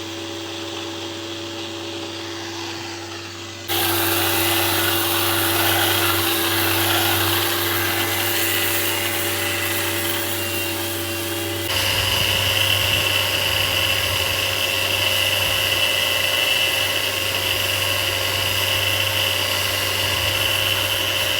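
Power sander running steadily against a boat hull, sanding off old bottom paint, a continuous whine with hiss. It jumps louder about four seconds in and changes again near twelve seconds, taking on a higher whine.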